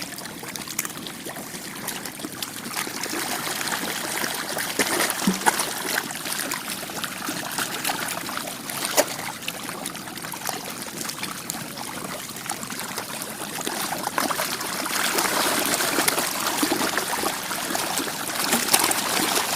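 Continuous splashing and sloshing of water as a dense crowd of African catfish thrash at the surface in a feeding frenzy, dotted with many small sharp splashes and growing louder in the last few seconds.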